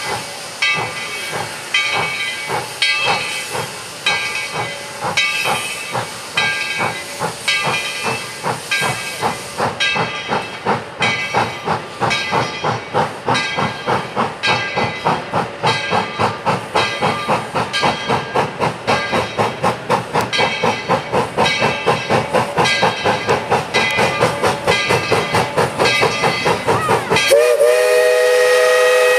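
Tweetsie Railroad #12, a 1917 Baldwin 4-6-0 narrow-gauge steam locomotive, pulling away. Its exhaust chuffs quicken steadily from about two a second to four or five a second as it gathers speed, and steam hisses from the open cylinder cocks at first. Near the end its steam whistle sounds a long blast of several tones at once.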